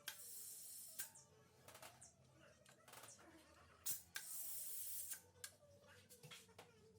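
Two short bursts of hissing spray, each about a second long: one just after the start and one about four seconds in. Scattered light clicks and taps fall between them.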